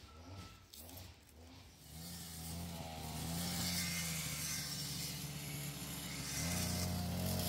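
An engine running, coming in about two seconds in and growing louder, with a slight dip before it picks up again near the end.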